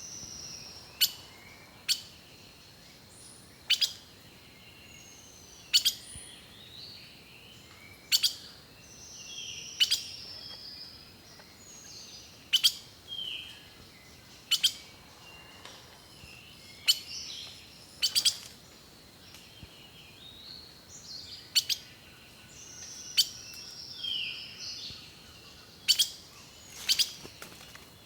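Songbirds singing and calling. Very short, sharp chip notes come about every one to three seconds and are the loudest sounds, over quieter falling whistled phrases.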